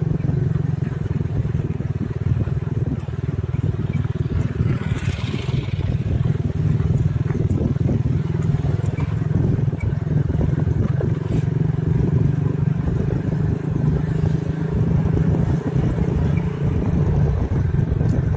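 Motorcycle engine running steadily under way, with rough road and wind noise over it.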